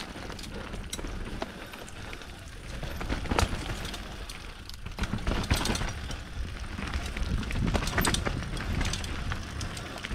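Intense Tracer enduro mountain bike riding down a rough, wet trail: tyres running over roots and rocks while the bike rattles with many quick knocks, busier about a third of the way in and again through the second half.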